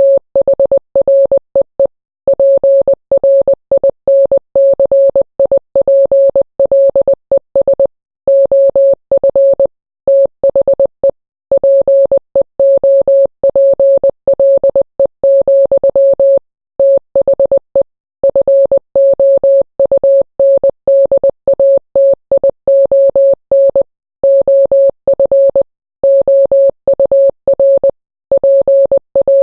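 Morse code sent as a single steady beep tone, keyed rapidly on and off in dots and dashes, with longer pauses every few seconds between words.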